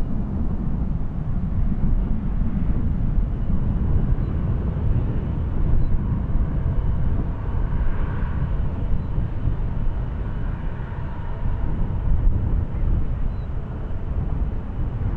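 British Airways Airbus A380's four Rolls-Royce Trent 970 turbofans running at low taxi power: a steady, deep jet rumble, with a faint higher whine that swells in the middle.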